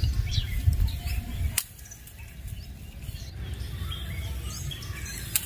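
Small birds chirping faintly over a low rumble of wind on the microphone. The rumble drops off abruptly with a sharp click about a second and a half in, and another click comes near the end.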